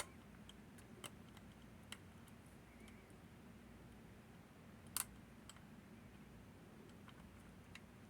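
Faint, sparse metallic clicks from lock picks working the levers of a Northern Telecom NE-22 six-lever lock, a few seconds apart, the loudest about five seconds in.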